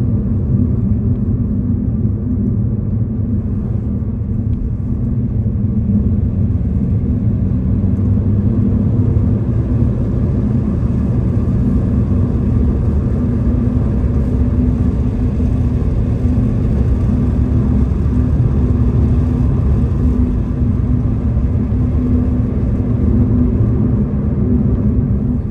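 Steady rumble of a car on the move, heard from inside the cabin: road and engine noise with no sudden changes.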